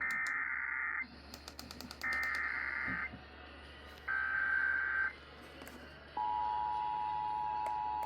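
Emergency Alert System SAME header: three bursts of digital data tones, each about a second long with a second's gap between them, encoding a National Weather Service severe thunderstorm warning. About six seconds in, the steady two-tone EAS attention signal begins.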